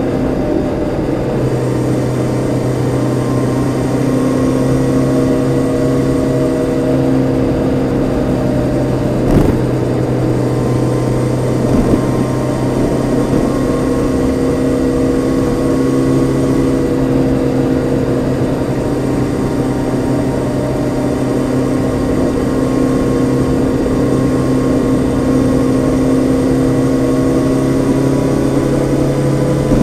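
Honda CB650R's 649 cc inline-four with its stock exhaust, heard on board while cruising at a nearly steady speed, the engine note drifting only slightly up and down. A short knock about nine seconds in, and a smaller one a few seconds later.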